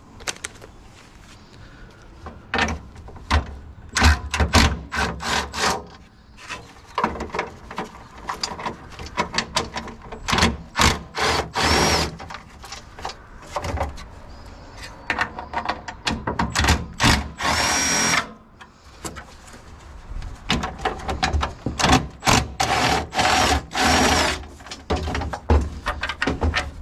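Cordless drill driving a socket extension in many short bursts, with a few longer runs that carry a high whine. It is backing out 10 mm bolts held with thread locker.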